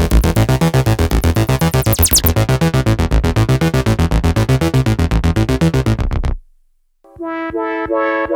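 IK Multimedia UNO Synth Pro analog synthesizer playing a fast pulsing electronic sequence over a bass line, which cuts off about six seconds in. After a short silence, a new sustained patch begins, with notes coming in one after another and stacking into a held chord.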